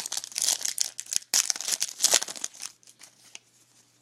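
Trading card pack wrapper being torn open and crinkled, a dense crackling rustle for about two and a half seconds, then a few faint handling ticks.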